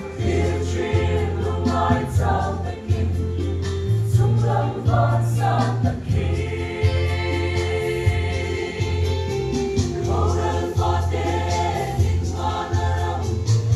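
Mixed choir of men and women singing together.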